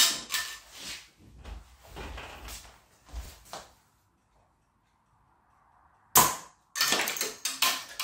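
Hard plastic knocks and clicks as small 3D-printed PLA launcher and glider parts are handled and set down on a hard floor: a run of rattling clicks, a quiet spell, then a sharp knock about six seconds in followed by a quick cluster of clicks.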